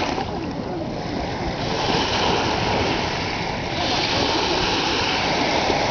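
Small waves washing onto the beach: a steady rushing noise that swells about a second and a half in and again near four seconds.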